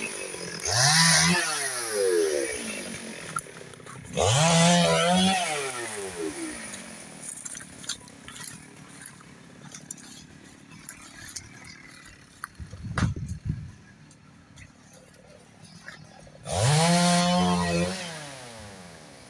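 Chainsaw engine revved up three times, about a second in, around four seconds in and near the end. Each time the pitch climbs, holds for a second or two and drops back, and the saw idles low in between. A single sharp knock comes about thirteen seconds in.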